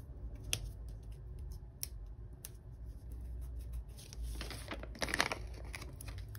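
Paper stickers being handled on a planner page: a few light taps on the paper, then a rustle of a sticker being peeled and pressed down about four to five seconds in, the loudest moment.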